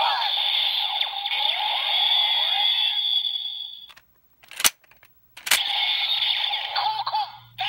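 Kamen Rider Ghost Driver toy belt playing its electronic standby music and sound effects through its built-in speaker. The sound fades out about four seconds in. The belt's lever then clicks twice, a second or so apart, and the belt's electronic sound starts up again.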